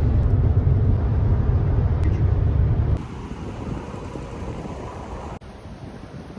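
Road and wind noise from a car driving at highway speed, a loud low rumble that drops abruptly about three seconds in to a quieter, steady rush, which changes abruptly again near the end.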